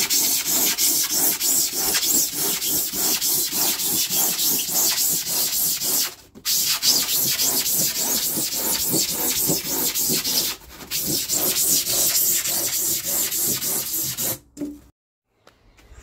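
A hand tool scraping back and forth across an insulation board in fast, even strokes, like sanding or rasping the board's face. It pauses briefly twice and stops about a second and a half before the end.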